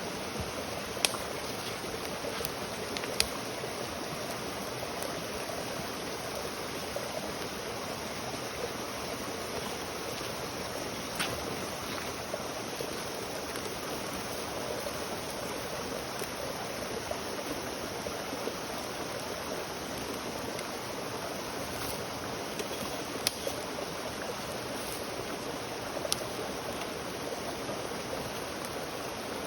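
Campfire burning: a steady hiss with a few isolated sharp pops from the wood.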